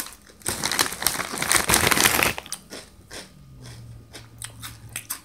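Takis Explosion tortilla chips being bitten and chewed close to the microphone: a loud stretch of crunching for about two seconds, then a run of short, sharp crunches as the chewing goes on.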